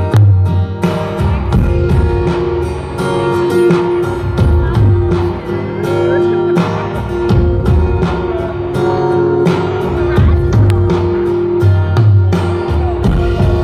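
Live amplified band music heard from the audience in a concert hall: keyboards holding one steady note over a deep bass line.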